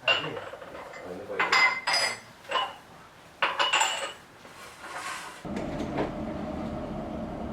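Hard utensils and dishes clinking and clattering in several short spells. About five seconds in, a steady low machine hum starts abruptly.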